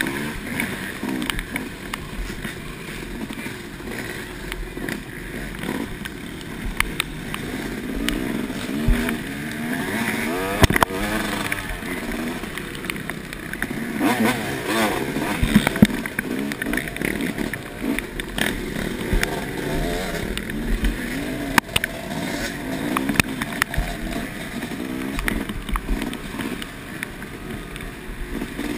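Yamaha dirt bike engine revving up and down over and over as the bike is ridden along a rough, muddy trail, with a few sharp knocks from the bike over bumps.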